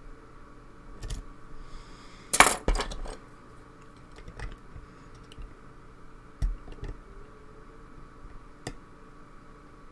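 Metal lock-picking tools clicking and clinking against a lock as it is worked, with a short rattle of louder clinks about two and a half seconds in and single clicks scattered after it.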